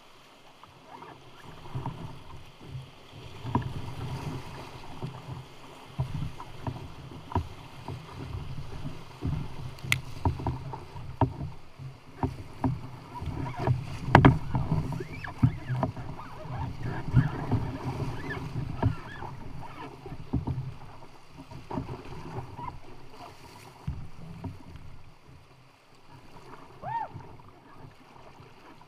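A canoe running whitewater rapids: rushing water with repeated splashes slapping against the hull and the paddle digging in. It is busiest about halfway through and eases off near the end.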